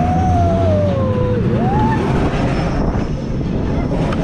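Steady rushing wind noise on the microphone, with a drawn-out siren-like hooting voice. The voice slides down in pitch for over a second, then gives a shorter rising whoop.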